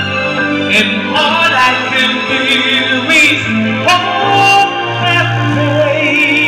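Karaoke: a singer's amplified voice over a rock-ballad backing track, holding high notes with wide vibrato in the middle and again near the end.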